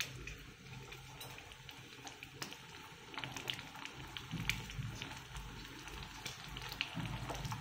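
Faint sizzling of black pepper and cumin seeds frying in hot oil in a small steel tempering pan, with scattered small pops and crackles as dried red chillies are crumbled into it.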